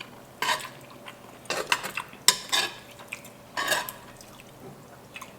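Eating utensils clinking against a bowl of instant ramen several times as food is dipped and picked up, with short gaps between the knocks.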